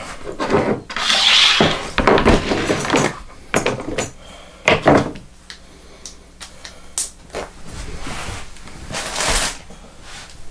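Hand tools and a plastic cutting board being picked up, moved and set down on a wooden workbench: irregular knocks and clatter, with a few brief scraping rustles.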